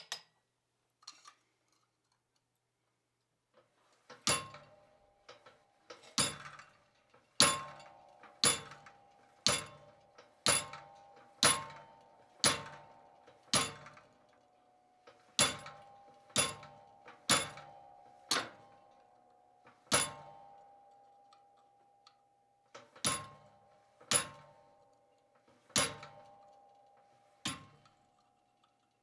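Treadle hammer striking a small steel chisel into a cold 1/8-inch steel plate to cut shallow lines, about one blow a second with a few pauses. Each blow leaves a metallic ring. The first few seconds hold only a couple of light clicks.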